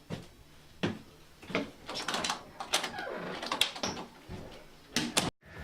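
A run of irregular knocks and clunks, with two sharp ones close together near the end, after which the sound cuts off abruptly.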